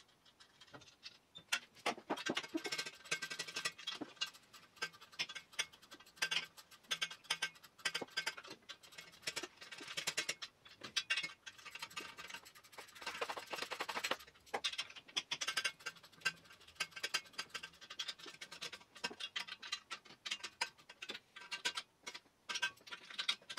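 Socket ratchet clicking in quick runs of sharp ticks, with brief pauses, as nuts are run down to fasten the exhaust to the turbo.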